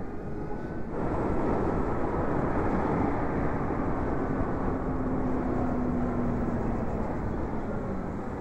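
Steady wind and road noise on a moving electric motorcycle, getting louder about a second in. A faint steady hum runs through the middle.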